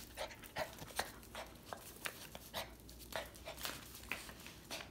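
Small Chihuahua-type dog panting quickly in excitement as it greets its owner, with many light, irregular clicks and scuffs.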